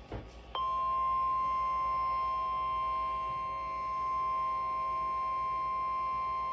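A few short crackles, then about half a second in the NOAA Weather Radio 1050 Hz warning alarm tone starts: one loud, steady, unwavering tone with fainter overtones. It is the alert signal that comes before a warning message is read out.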